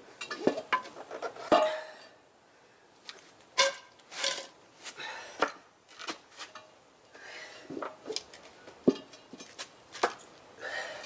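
Metal hand tools clinking, knocking and scraping at irregular intervals during hand work on a motorcycle wheel and tire.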